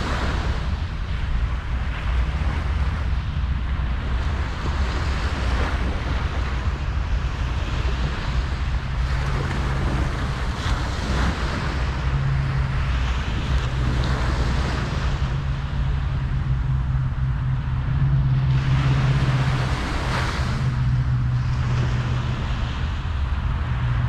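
Ocean surf washing onto a beach in repeated swells, with a low wind rumble on the microphone. A steady low hum joins in about a third of the way through.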